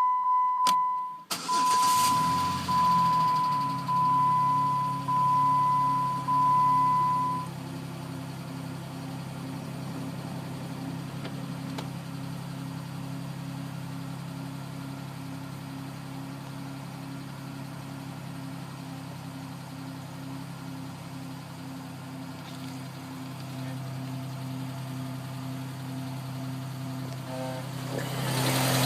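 2011 Dodge Nitro's engine cranking and catching about two seconds in, with a dashboard warning chime beeping about once a second until around seven seconds. It then idles steadily with a faint regular pulsing. Near the end the idle grows louder and a pulsing higher-pitched noise comes in: the horrific noise the owner says two dealerships cannot hear.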